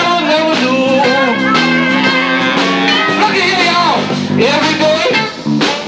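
Live band playing a blues-rock song: guitar lines bending in pitch over held low notes, with drum hits coming in near the end.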